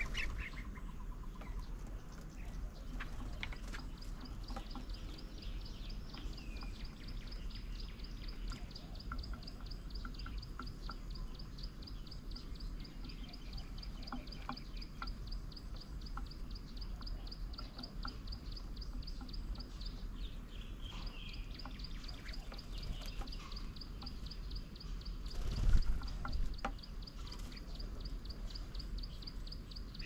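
Outdoor ambience at a bird table: small birds chirping now and then over a steady, fast, high-pitched ticking trill, with a brief low thump about 26 seconds in.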